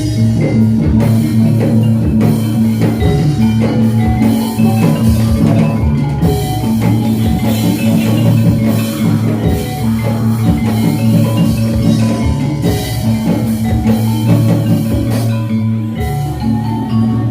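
Live Javanese jathilan accompaniment music: gamelan-style mallet-struck metal keys over drums, playing continuously at a steady beat with held low notes.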